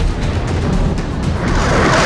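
Cinematic music with deep booming hits, swelling in the upper range near the end.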